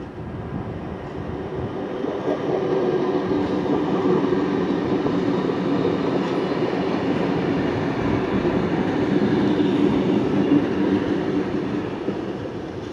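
NSW V-set double-deck electric train passing: a steady rumble of wheels on rail with a low hum, building over the first couple of seconds, holding, then fading near the end.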